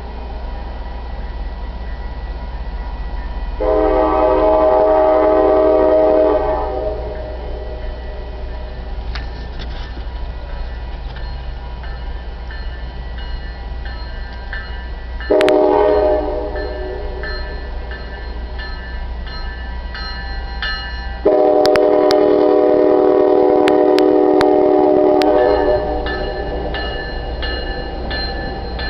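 GO Transit commuter train's diesel locomotive horn sounding three chord-like blasts, long, short, then long, the warning signal for a road crossing, over the steady low rumble of the train. A bell rings steadily through the second half, clearest near the end.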